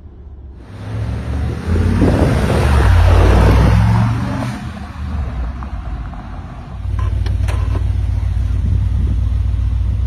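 Brabus G-wagen pickup's tuned V8 driving, with engine and road noise. The sound swells loudest a couple of seconds in and eases off around the middle. From about two-thirds of the way through, a steady low engine drone takes over.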